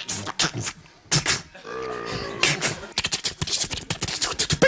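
Vocal sound effects made with the mouth: scattered clicks and pops, a wavering hummed tone about two seconds in, then a quick run of rapid mouth clicks.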